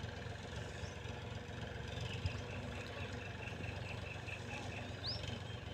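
Mahindra 265 tractor's diesel engine running steadily, faint with distance, driving its rear-mounted sprayer pump. Partway through, a run of about a dozen evenly spaced high chirps, and a short rising high note near the end.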